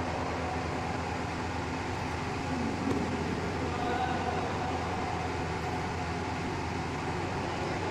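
Steady low hum with a hiss: the background noise of a large indoor badminton hall, with no clear racket or shuttle hits standing out.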